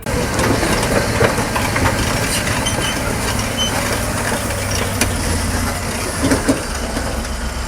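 Large crawler bulldozer working: a steady low diesel engine note under a continuous clatter of tracks and the crunch and knock of rock being pushed.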